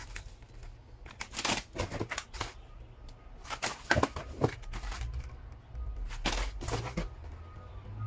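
Plastic snack packaging and cardboard boxes being handled: several short bursts of crinkling and rustling as a foil-plastic snack bag is set down and a snack box is pulled from a cardboard carton.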